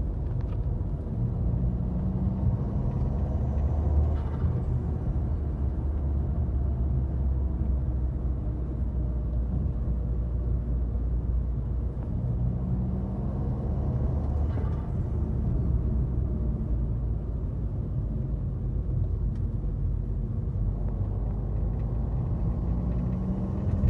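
Citroën C4 Lounge's 1.6 THP turbocharged four-cylinder engine, running without its paper air filter element, revving up three times, each time ending in a short burst of turbo flutter as the throttle closes. The flutters come about four seconds in, midway and at the very end.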